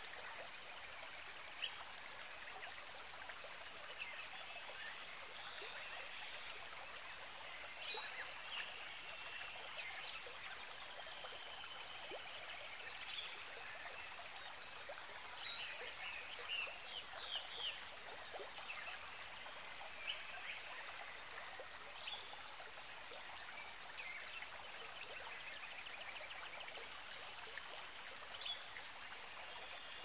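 A steady soft hiss of running water with scattered bird chirps, quick sweeping calls and short trills over it, busiest around the middle.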